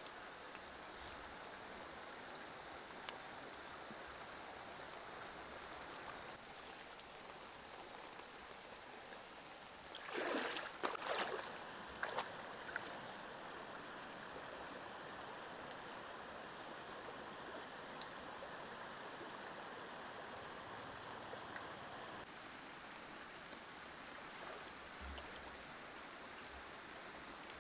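Shallow stream water flowing with a steady rush. About ten seconds in there is a brief burst of louder splashing and rustling as the water spinach is handled at the water's edge.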